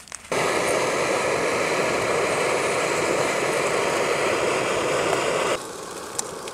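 Canister backpacking stove burner running with a steady, even roar. It starts and stops abruptly.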